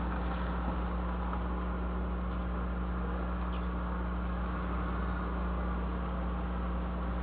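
Steady low hum under an even hiss, unchanging throughout; no horn sounds.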